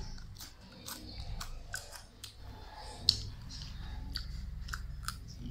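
Close-up chewing of crispy fried pork rind (chicharon): wet chewing broken by scattered short crunchy crackles, over a low steady hum.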